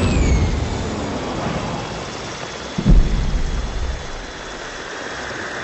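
Film sound effects of an air-raid bombing: a short falling whistle as a bomb drops, a deep rumble, and a heavy bomb explosion about three seconds in, followed by a lower continuing rumble.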